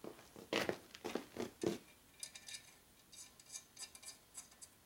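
Small metal clinks and clicks of nuts and tools being worked onto the exhaust studs of a Harley shovelhead cylinder head: a few sharper knocks in the first two seconds, then a run of light, rapid ticks.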